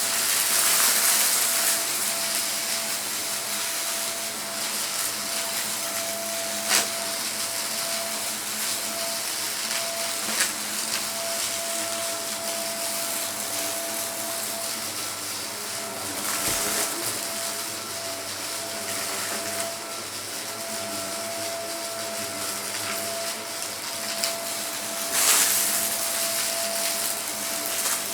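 Vacuum cleaner running steadily with a high motor whine over the rush of air, sucking up debris, with a few sharp clicks and two louder surges of airflow.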